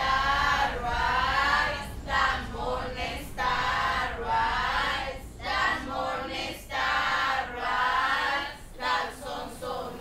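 A group of voices singing a cappella, a gospel-like Mascogo spiritual, in drawn-out phrases with short breaks between them.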